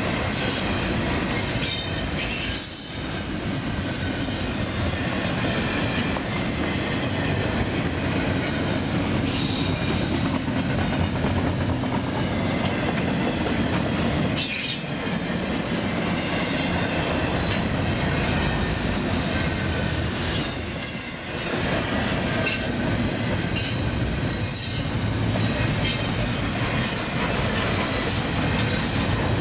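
Double-stack intermodal container train's well cars rolling past: steady rumble of steel wheels on rail, with high-pitched wheel squeal coming and going and a few brief dips in loudness.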